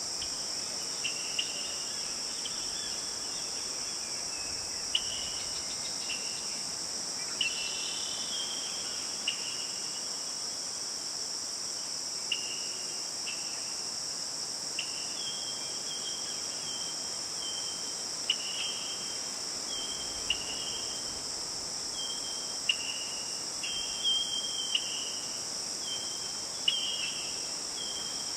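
Steady high-pitched insect chorus, with short bird chirps coming every second or two over it.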